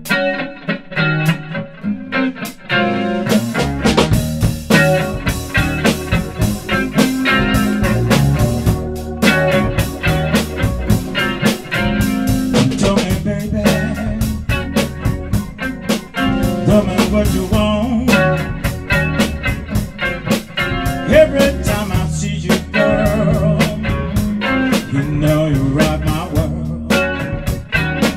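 A live blues-rock band playing a song intro with no vocals. An electric guitar plays alone at first, then bass and drum kit come in about three and a half seconds in, and the full band keeps playing.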